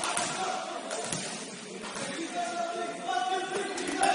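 Basketball game in a gym: several raised voices calling out in short held tones, with a few sharp knocks.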